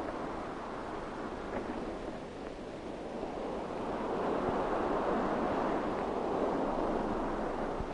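Wind and sea at sea: a steady rushing noise of wind and waves, swelling a little in the second half.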